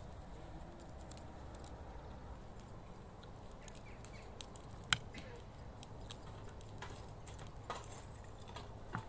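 Small scattered clicks and taps of metal skewers and a glass spice jar knocking against plates while raw lamb is skewered and seasoned, the sharpest click about five seconds in and a few more near the end, over a low steady rumble.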